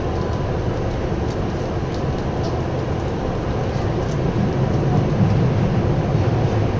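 Steady rumble of a Tokyu Oimachi Line commuter train running between stations, heard from inside the car, growing a little louder after about four seconds.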